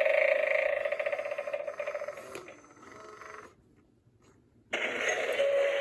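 Battery-powered animated eyeball Halloween doorbell prop playing its electronic doorbell sound through a small speaker: a buzzing ring that fades out after about two seconds. A moment of silence follows, then another electronic sound effect starts near the end.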